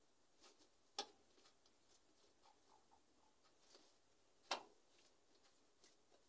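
Quiet handling of dough balls: two sharp taps, about a second in and again past the middle, as dough balls are set down on the countertop, with a few faint ticks from hands working the dough in between.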